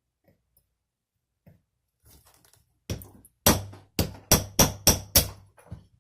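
Small hammer tapping a roll pin punch, driving the ejector roll pin into an AR-15 bolt: one tap, then six quick taps about three a second.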